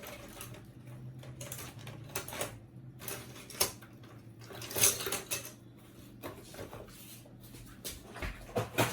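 Scattered small clicks and clinks of metal tweezers handling the plastic and metal parts of a laser printer's fuser unit, the loudest tap about five seconds in, over a faint steady hum.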